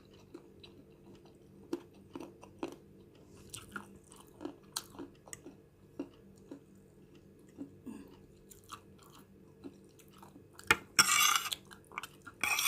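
A person chewing and eating fried noodles, with scattered small clicks and ticks, and a louder rushing noise about a second long near the end.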